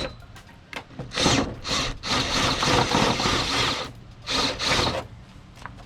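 A cutting tool working into the carbon fiber hood in four rasping bursts, the longest lasting about two seconds.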